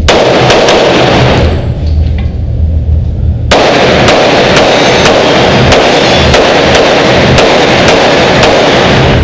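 Pistol gunfire from a red-dot-sighted competition pistol at an indoor range: sharp shots over a dense reverberant din. The shots stop for about two seconds after the first second, then come in a quick string, roughly two to three a second.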